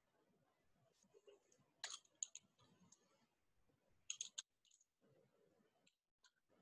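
Faint clicks of a computer keyboard and mouse: a couple of sharp clicks about two seconds in, a quick run of clicks a little after four seconds, then lighter key taps near the end.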